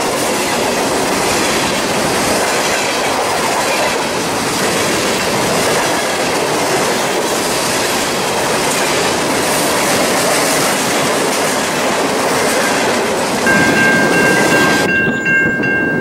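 Freight train of covered hopper cars rolling past, with a steady rumble of wheels on rail and some clickety-clack. Near the end the rumble cuts off, and a railroad grade-crossing bell rings in a steady repeating pattern.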